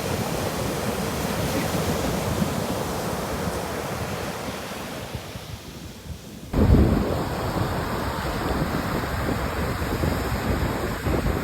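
Ocean surf with wind buffeting the microphone. The sound dips quieter a little past halfway, then comes back suddenly louder with a heavy low rumble.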